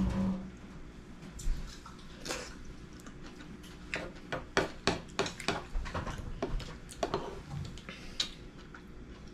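A metal spoon clicking against a wooden soup bowl while someone eats: scattered light knocks, with a quick run of them about halfway through.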